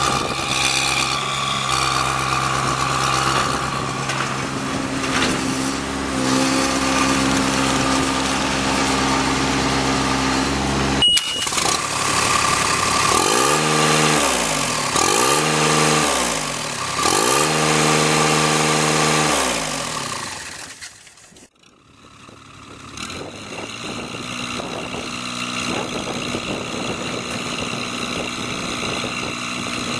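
Boxer 425D walk-behind track loader's diesel engine running steadily, then its engine speed dips and climbs back three times. After a brief drop-out it runs steadily again.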